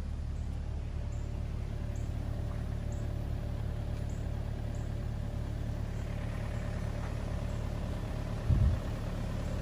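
Engine idling steadily, a low drone, with faint light ticks about twice a second in the first half and one short knock near the end.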